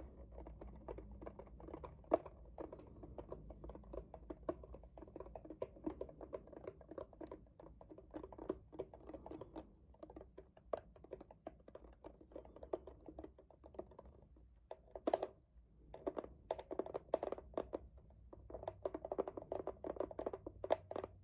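Keys of a Logitech G Pro tenkeyless mechanical gaming keyboard being pressed in quick, dense runs of clicks, like typing. There is a short pause about fourteen seconds in before the clicking resumes.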